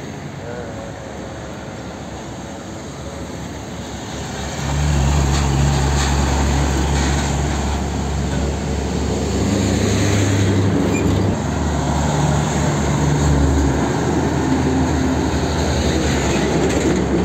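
Heavy diesel trucks driving past close by, engine running with a low steady drone over tyre and road noise. It gets louder about five seconds in as a tanker semi-trailer passes.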